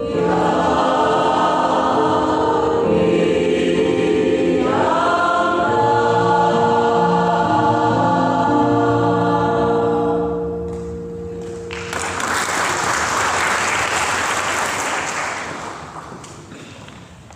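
Church choir singing the close of a song, ending on a long held chord that stops about ten seconds in. Applause follows for a few seconds and fades away.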